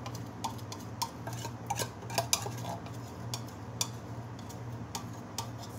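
Irregular clinks and scrapes of a metal spoon as thick sweetened condensed milk is scooped out of its can into a saucepan, over a low steady hum.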